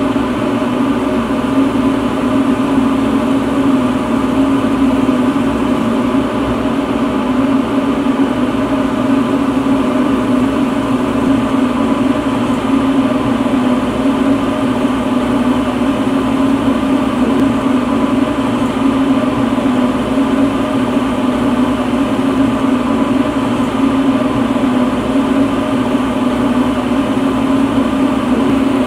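Small lampworking bench torch burning: a steady, unchanging rush of flame noise with a strong low hum.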